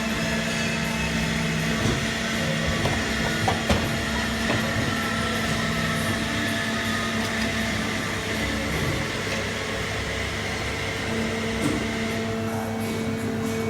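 Herber three-stack CNC mandrel tube bending machine running through a bending cycle: a steady motor hum with whining tones that switch on and off as the axes move, and a few sharp clicks a few seconds in.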